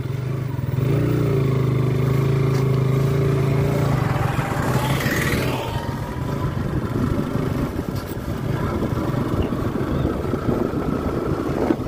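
Motorcycle engine pulling away and accelerating, with road and wind noise building as it gathers speed.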